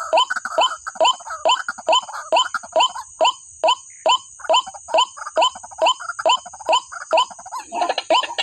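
Calls of a white-breasted waterhen (ruak-ruak), a short upward-sweeping 'kwak' repeated very evenly about two and a half times a second, over a steady high-pitched whine.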